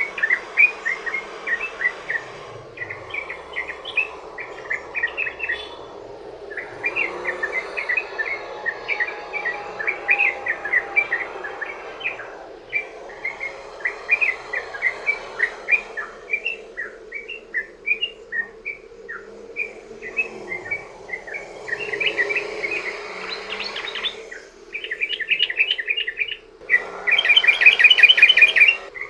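Yellow-vented bulbul (trucukan) singing long, fast chattering runs of short chirping notes, phrase after phrase with brief pauses between, over a steady hiss; the last phrase near the end is the loudest.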